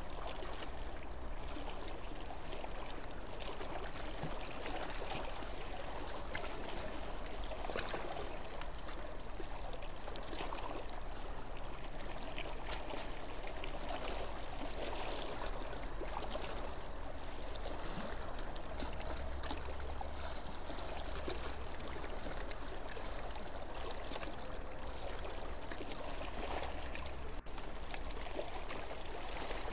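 Steady rushing and splashing of harbour water at the quay edge, with a low rumble underneath; the sound drops out for an instant near the end.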